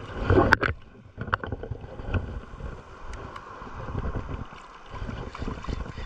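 Wind buffeting the microphone over shallow sea water, with uneven rumble and small handling knocks, and one sharp click about half a second in.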